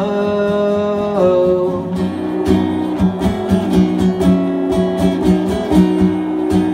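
A male voice holds the last sung word of a line for about a second over acoustic guitar. The acoustic guitar then carries on alone, strummed in a steady rhythm of about three strokes a second.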